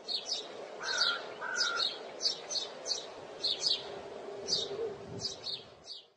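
Small birds chirping: a string of short, high chirps, about two a second and often in pairs, with two lower whistled notes about a second in, over a steady faint background noise.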